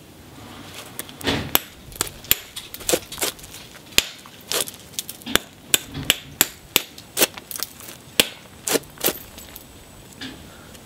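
Cherty mudstone spall being tapped along its edge with a hand-held knapping tool. A quick, uneven run of sharp clicks, about three a second, knocks small chips off the edge and stops near the end.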